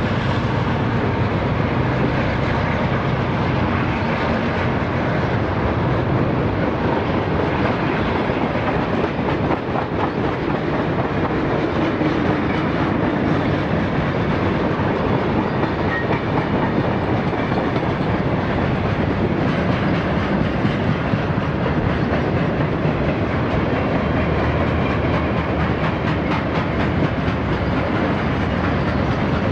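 Freight train rolling past at close range: a steady rumble of cars, with the steel wheels clicking over rail joints.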